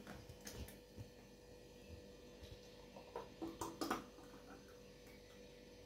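Blended banana-and-nut milkshake being poured from a plastic blender jar into steel tumblers: faint, with a few short soft sounds grouped about three to four seconds in, over a faint steady hum.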